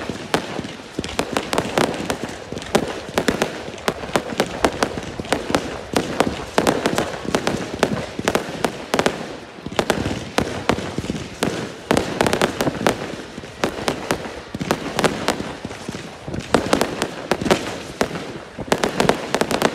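Multi-shot firework cake firing a dense, continuous barrage of launches, bangs and crackles that comes in waves, falling away right at the end.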